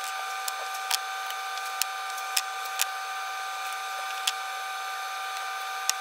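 A running shop machine gives a steady whine with a light hiss. About seven short sharp clicks and taps sound over it as painter's tape and a clear template are handled on the wooden board.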